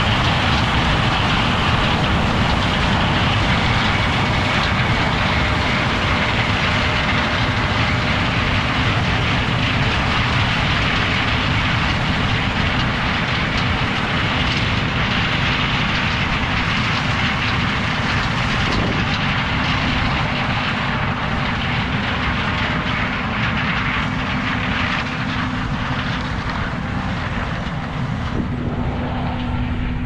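John Deere S780 combine running at harvest load as it cuts corn: a steady machine noise that eases slightly as the combine draws away.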